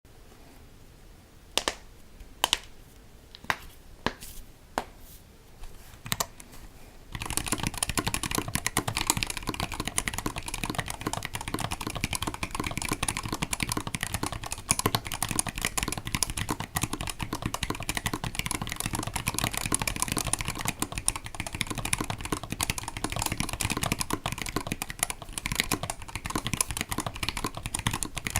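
Mechanical keyboard with stock, unlubricated KBDFans T1 tactile switches and GMK keycaps being typed on. First come a handful of single, spaced keystrokes, then from about seven seconds in, fast continuous typing.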